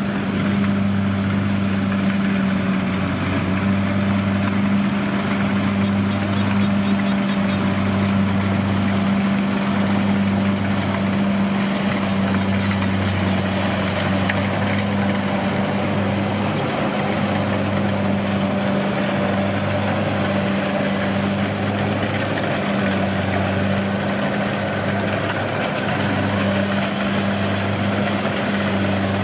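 Diesel engine of a rice combine harvester running steadily. It makes a constant hum with a lower throb that swells and fades about every second and a half.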